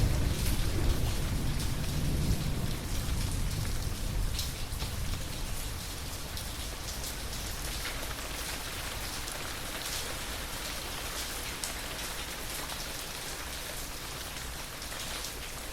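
Steady rain falling, with scattered single drops standing out. A low rumble of thunder dies away over the first few seconds.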